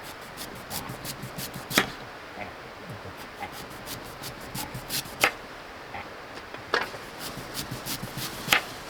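A series of irregular sharp chopping knocks, a handful of them much louder than the rest.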